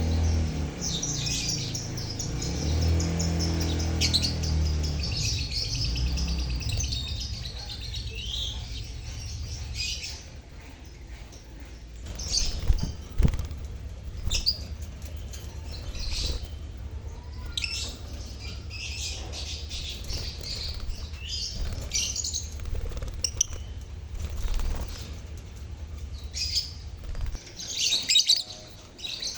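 A colony of lovebirds chirping and chattering together: many short, shrill calls overlapping and coming in bursts, with a low rumble underneath for the first several seconds.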